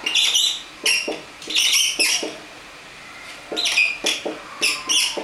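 Dry-erase marker squeaking on a whiteboard as symbols are written, in short groups of high squeaks with a pause of about a second in the middle.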